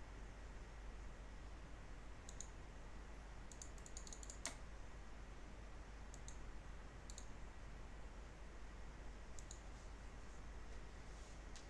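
Faint computer mouse clicks over a steady low background hiss. The clicks are scattered singles, with a quick run of them about four seconds in and the loudest click just after.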